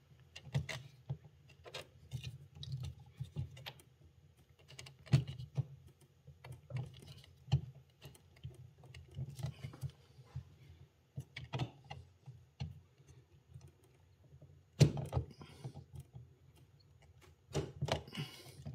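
Irregular light clicks and taps of a Vortex CTW2 torque screwdriver being hand-turned in a circuit breaker's terminal screw, tightening it to a 27 inch-pound setting. There is a sharper click about 15 seconds in and a cluster of clicks near the end.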